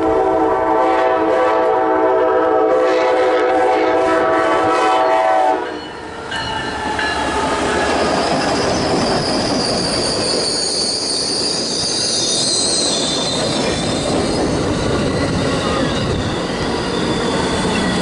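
Amtrak passenger train's multi-chime air horn holding one long, steady chord, which cuts off about five and a half seconds in. The train then passes close by: a loud rumble of wheels on rail, with a high metallic squeal for several seconds in the middle.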